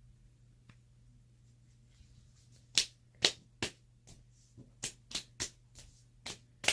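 Homemade fluffy slime made from glue and shaving cream, handled and squeezed by hand, giving a string of sharp clicks and snaps. The clicks start about two and a half seconds in and come unevenly, two or three a second, over a faint steady hum.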